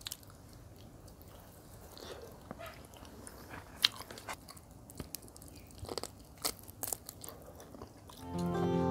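Close-miked eating sounds: quiet chewing with scattered sharp crunches and mouth clicks as chicken curry is bitten and eaten by hand. The loudest crunch comes a little before four seconds in. Music fades in near the end.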